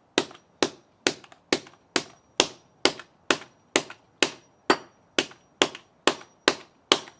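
Hammer striking a Dell laptop power adapter over and over in a steady rhythm, about two blows a second.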